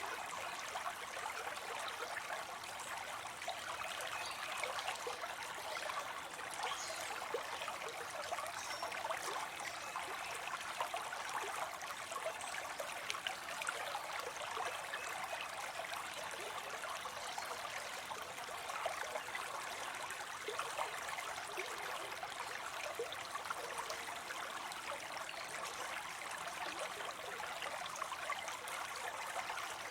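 Water falling into a pond, splashing and trickling steadily.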